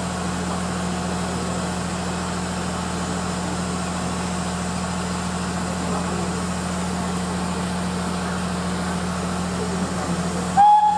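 Steady low hum from the standing steam train, then, right at the end, the start of a loud blast on the whistle of the Port Talbot Railway 0-6-0 saddle tank No. 813.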